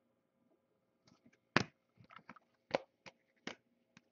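A stack of stiff chrome trading cards being handled and flipped through by hand: about six short clicks and taps at irregular spacing, starting about a second and a half in.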